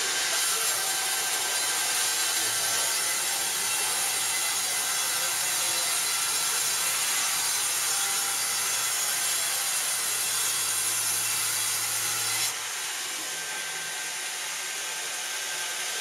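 Wood-Mizer WB2000 wide band sawmill sawing through a log: a steady, hissing cut of the wide band blade in the wood. The cutting noise stops suddenly about three-quarters of the way through, and a quieter running sound carries on.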